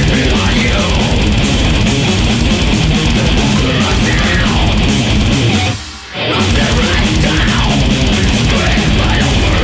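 Death metal song: heavy distorted electric guitars over a dense, driving rhythm. It cuts out briefly about six seconds in and then comes straight back in.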